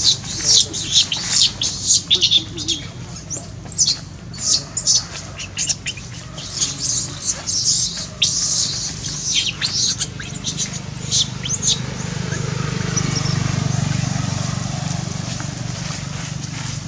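Baby long-tailed macaque giving rapid, high-pitched squeals and squeaks over and over, the distress calls of an infant wanting to nurse. The squealing stops about eleven seconds in, and a steady low drone rises in the background.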